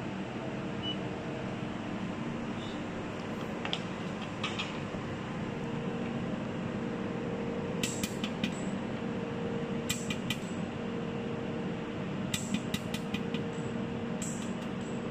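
Desktop jewelry laser welding machine humming steadily with its cooling running, while the laser fires in short groups of sharp ticks, a few pulses at a time, every two seconds or so from about four seconds in.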